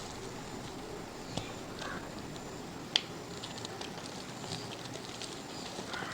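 Dried mud crumbling under pressure: a steady soft crumbling noise with scattered small crackles, and one sharp crack about three seconds in.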